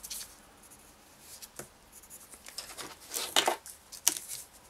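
A clear plastic ruler and pencil being handled over sheets of drawing paper on a desk: a soft click, then a short scraping rustle about three seconds in, then another light click.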